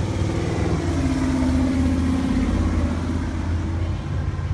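A motor vehicle's engine running nearby. Its note comes up and is loudest around the middle, then eases off.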